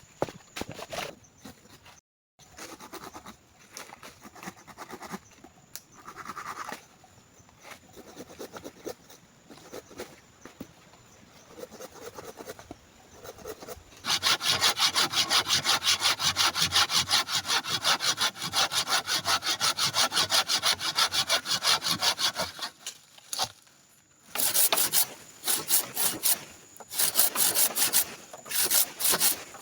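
Hand saw cutting through wood in rapid back-and-forth strokes, a steady run of about eight seconds from midway, then short bursts of sawing near the end. Quieter scraping and knocking of wood come before it.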